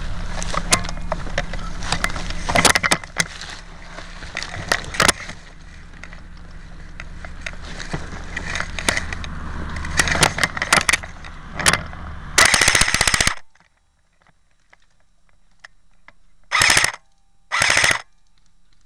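Airsoft rifle firing. Scattered single shots and clicks come first, then a rapid full-auto burst of about a second, the loudest part. Two short bursts follow near the end.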